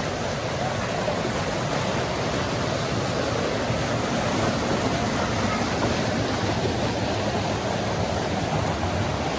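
Rushing river water over falls and rocks: a steady, even rush with no breaks.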